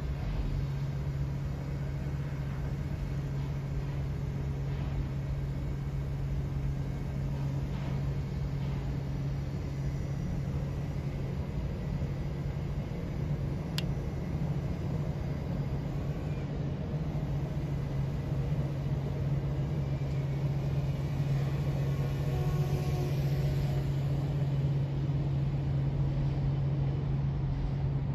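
Steady low hum of a Great Lakes lake freighter's diesel engines carried across the water, growing slightly louder near the end as the ship draws nearer.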